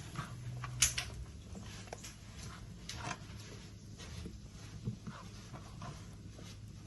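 Light kitchen handling sounds during salad preparation: scattered soft taps and clicks of food and utensils against a bowl, with one sharper click about a second in.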